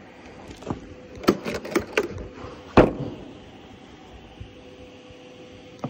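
Several sharp plastic clicks and knocks as a blue plastic impact-socket case is unlatched and opened, its lid and the heavy sockets inside rattling. The loudest knock comes near the middle, and a faint steady hum runs underneath.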